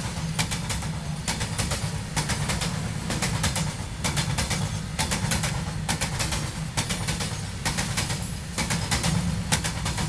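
A loaded rake of BCNHL covered freight wagons rolling past: a steady low rumble, with clusters of wheel clatter every second or so as the wheelsets cross rail joints.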